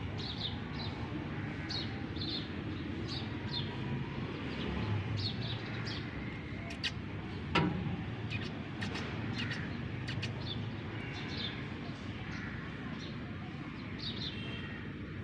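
Small birds chirping in short, high, repeated notes over a steady low background rumble, with a single sharp knock about halfway through.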